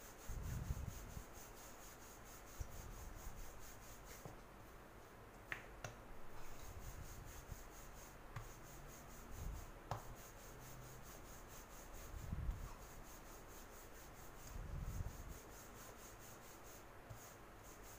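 Wooden rolling pin rolling out a round of dough on a floured marble countertop: faint soft rubbing strokes every two to three seconds, with a few light clicks.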